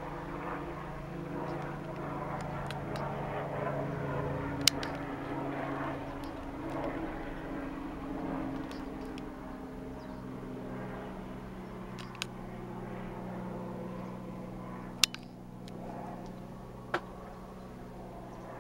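A light helicopter flying low overhead: a steady rotor and engine drone that swells as it passes and then eases off. A few sharp clicks break in.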